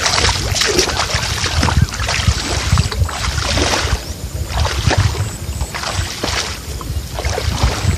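Water sloshing and splashing in irregular bursts as the catch is washed by hand.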